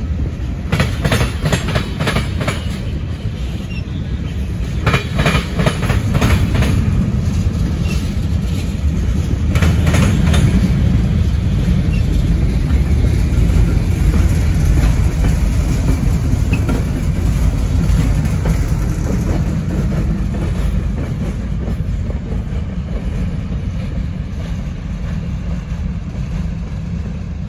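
Freight train of tank cars and covered hopper cars rolling past: a steady low rumble from the cars, with groups of sharp clickety-clack as the wheel sets cross rail joints. The sound fades over the last few seconds as the train moves away.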